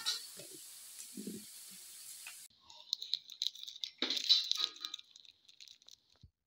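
A plastic lid knocks onto a plastic bowl over a steady hiss that cuts off abruptly about two and a half seconds in. Then foil instant-noodle seasoning sachets crinkle and rustle as they are squeezed out onto a plate, loudest a little after four seconds.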